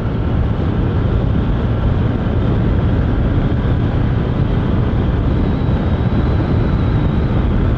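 Steady wind rush on the microphone mixed with the drone of a 150 cc Honda CG motorcycle cruising at a constant road speed, with no change in pace.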